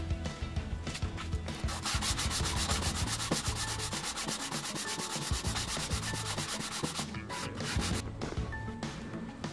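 Hand sanding of the aluminium cylinder head gasket face of a Toyota 1ZZ engine, abrasive paper held flat and rubbed back and forth to clean the deck. The strokes are quickest and most even from about two to seven seconds in, several a second, then turn to softer rubbing near the end.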